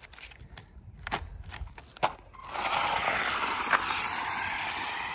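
Light scattered clicks and crackles, then about two and a half seconds in a steady hiss starts: an RC car driving off over dry leaves.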